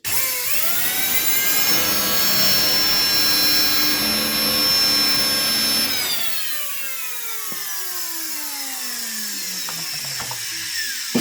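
Brushed motor of a Samsung Easy 1800 W vacuum cleaner, out of the cleaner and wired straight to the mains. It spins up with a rising whine, runs at speed for about five seconds, then is switched off and winds down with a long falling whine. The motor sparks at its commutator, which the repairman judges too scorched and scored to last.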